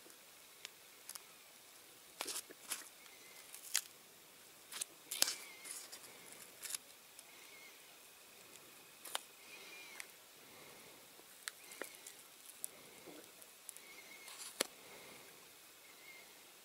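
Masking tape being lifted and peeled off a freshly sprayed diecast metal car body with a fine metal pick: irregular small clicks and crackles, loudest about five seconds in.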